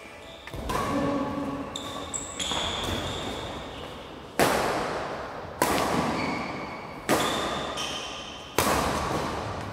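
Badminton rally: rackets striking the shuttlecock in sharp, echoing hits. One hit comes about half a second in, and four more follow about every second and a half in the second half.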